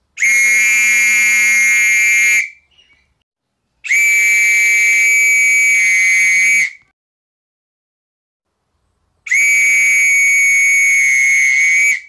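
A whistle blown in three long, steady blasts of about two to three seconds each, all at the same high pitch, with silent gaps between them.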